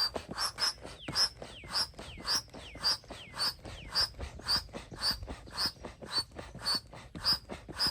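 Manual air pump inflating an air mattress, with rhythmic puffing strokes about two a second. There is a squeak on each stroke, and some of the squeaks fall in pitch during the first few seconds.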